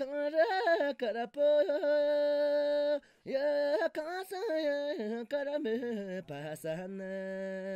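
One voice singing a Tibetan folk song unaccompanied, with long held notes and quick warbling turns between them. There is a short break for breath about three seconds in, and it ends on a long low held note.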